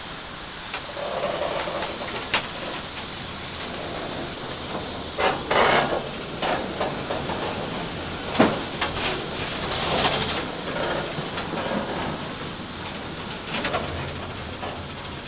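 Steam locomotive hissing steam, with irregular clanks and knocks and no exhaust beat; about two-thirds of the way through, a louder burst of steam hiss lasts about a second.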